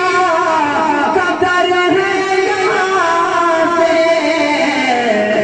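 A man singing a naat, an Islamic devotional poem, solo into a microphone, with long drawn-out notes that waver and slide in pitch.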